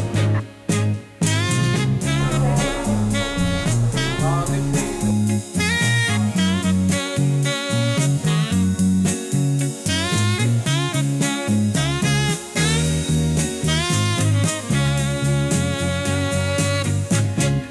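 Background music: upbeat swing-jazz with horns and a walking bass over a steady beat.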